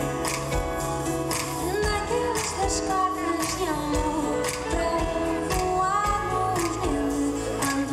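Live pop ballad: a woman sings lead over a band of guitars and cello, with a steady beat.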